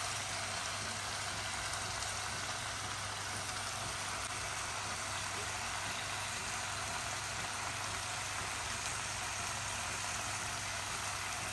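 Steady sizzling hiss of curry frying in a pan, with no stirring, over a low steady hum.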